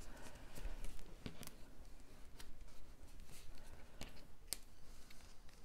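Hands handling and pressing cardstock pieces on a cutting mat: faint paper rustling with a handful of scattered light taps and clicks.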